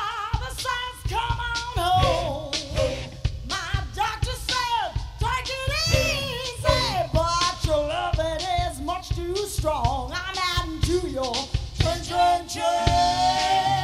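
Band playing dance music, a lead singer over a steady drum beat; near the end the singer holds one long note.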